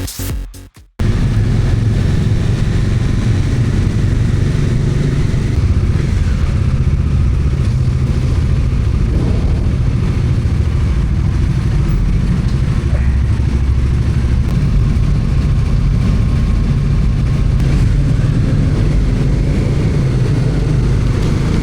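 Motorcycle on the move: a steady engine running under loud wind and road noise. It starts about a second in, as a choppy bit of music cuts off.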